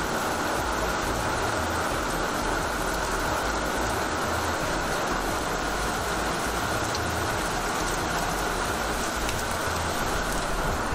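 Heavy downpour: a steady, even hiss of rain falling on the yard and splashing on the wet ramp at the workshop door.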